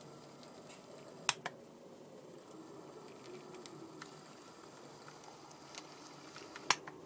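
Jouef HO-scale TGV V150 model train running slowly on its track under DCC control, a faint steady motor whirr. Two quick sharp clicks come about a second in and one near the end.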